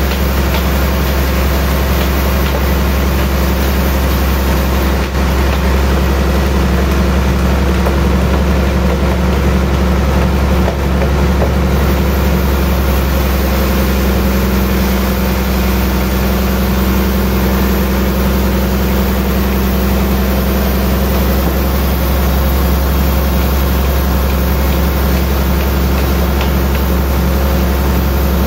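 Band sawmill running steadily as it cuts lengthwise through a thick suar (rain tree) log, a constant loud machine hum with no pauses.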